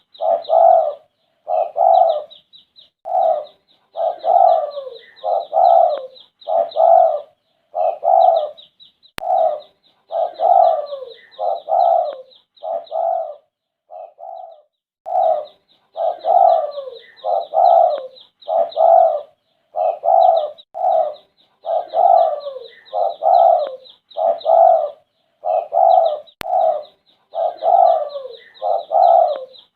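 Spotted dove cooing over and over, in short phrases of two or three coos with brief gaps between them. A faint, fast, high chatter runs above the coos for most of the time.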